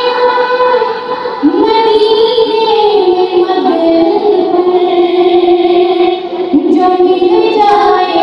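A woman singing a naat (Urdu devotional song) into a microphone over a PA, in long held melodic phrases, with brief breaks for breath about a second in and about six seconds in.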